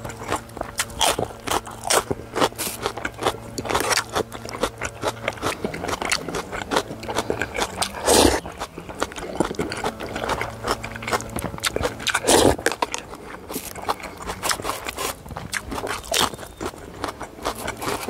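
Close eating sounds: a spoon scraping a container and crunchy bites and chewing of rice in ice water with green chili peppers and young radish kimchi, in frequent irregular clicks and crunches, with two louder crunches about eight and twelve seconds in.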